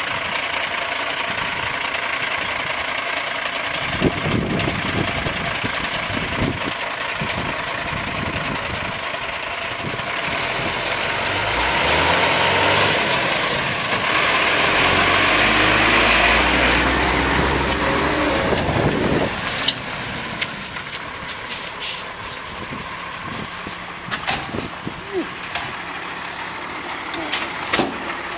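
Rear-loader garbage truck running, its diesel engine revving up for several seconds in the middle as the hydraulic packer cycles, then settling back with scattered knocks and clatter.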